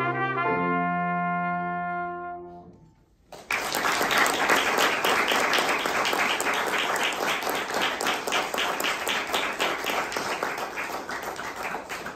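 Trumpet and grand piano end the piece on a held final chord that dies away. After a moment of silence, applause breaks out about three seconds in and carries on.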